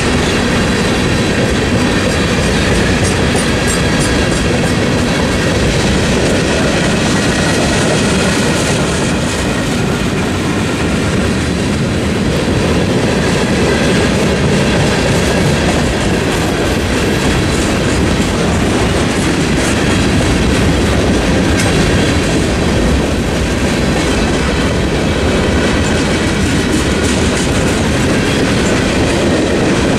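Norfolk Southern mixed freight train's tank cars and covered hoppers rolling steadily past, their wheels clacking over the rail joints and the crossing with a continuous rumble.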